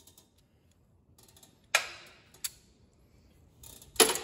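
Sharp metal clinks with a brief ring, one about two seconds in and a louder one at the end, from steel hand tools and parts being handled on a tractor's three-point lift linkage.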